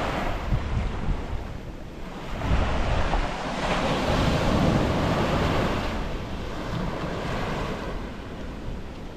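Surf breaking and washing on a beach, swelling and fading in surges, with wind buffeting the microphone.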